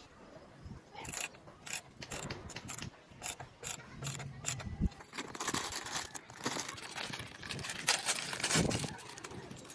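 Irregular metallic clicks and rattles as bolts are fitted and turned into the chrome rear mudguard mount of a motorcycle, with a louder rustle near the end.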